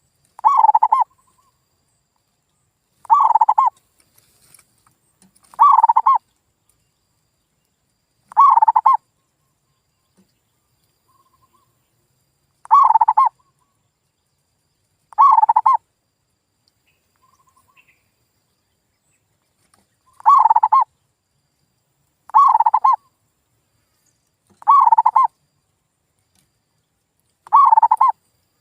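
Male zebra dove (perkutut) cooing: about ten short bursts of quick, rolling coo notes, each roughly half a second long and a couple of seconds apart, with a longer pause near the middle. It is a lure song meant to set other perkutut calling.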